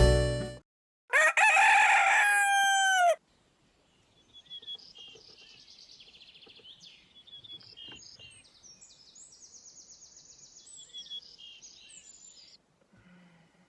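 A rooster crows once, a call about two seconds long that drops in pitch at the end. Small birds then chirp and trill faintly for several seconds.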